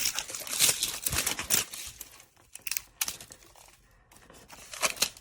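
Packaging crinkling and rustling as it is handled, busiest over the first two seconds, then fainter scattered clicks and handling noise with a short rustle near the end.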